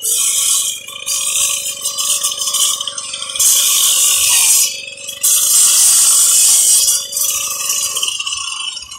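Electric angle grinder with a cutting disc cutting a groove into a concrete block wall: a steady motor whine under loud gritty grinding that swells and eases several times as the disc bites into the block. The motor stops about eight seconds in.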